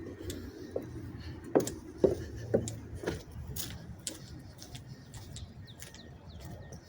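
Birds chirping faintly over a low steady hum, with a few sharp clicks in the first half.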